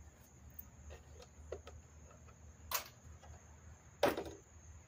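Hand tools knocking and clinking in a socket-set case: a few light clicks, one sharp knock almost three seconds in, and a louder clatter about four seconds in.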